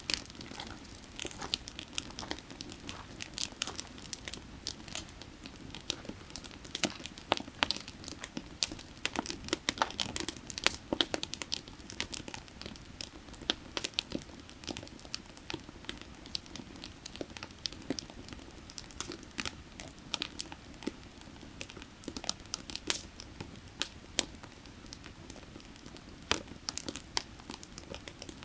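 Burning firewood crackling, with irregular sharp pops and snaps, several a second, over a steady low rush.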